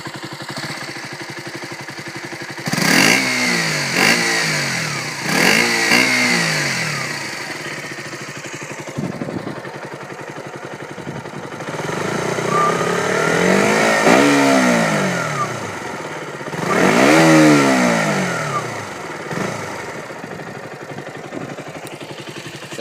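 2013 KTM 125 Duke's single-cylinder four-stroke engine on its stock exhaust, warmed up and idling, with a few quick blips of the throttle in the first seven seconds, then two longer revs that rise and fall, one around the middle and one later on.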